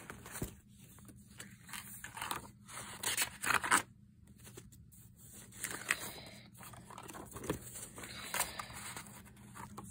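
Paper pages of a spiral-bound sketchbook being turned and rubbed by hand: a series of irregular rustles and scrapes, the loudest about three and a half seconds in.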